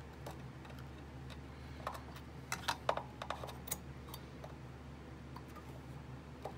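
Scattered light clicks and taps of a soldering iron and hand tools against component leads on a circuit board during desoldering, bunched together about two to four seconds in, over a steady low hum.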